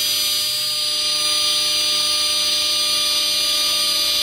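Mazak FJV-250 machining center's spindle turning a 3 mm ball end mill at 18,000 rpm, cutting a 0.1 mm deep groove into a quartz plate: a steady high whine over a constant hiss.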